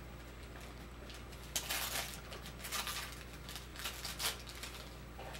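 Wrapping paper tearing and crinkling by hand in a run of short, irregular rustles as a small present is unwrapped, starting about a second and a half in, over a faint low hum.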